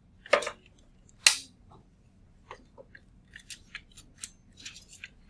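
Stylus tapping and clicking on a touchscreen during handwriting: two sharper knocks in the first second and a half, then a run of light ticks.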